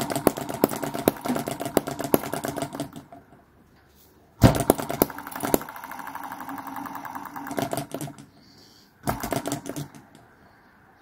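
Cordless drill spinning over a small OKMO/Microcosm model hit and miss petrol engine, trying to start it. It comes in three bursts of rapid clattering clicks over the drill's whine: about three seconds, then about three and a half seconds, then a short burst of about a second near the end.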